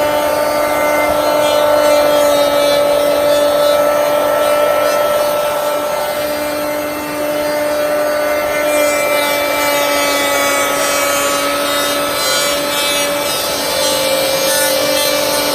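Bosch PL1632 electric hand planer running and shaving rough-sawn mahogany: a steady motor whine over the rasp of the cutterhead on the wood, dipping briefly about halfway through.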